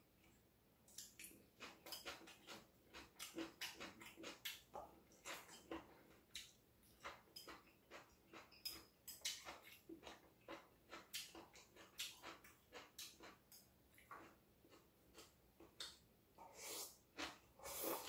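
Faint close-up eating sounds: chewing and lip-smacking with short clicks, two or three a second and irregular. Near the end comes a longer, louder stretch as rice is eaten from a bowl held to the mouth.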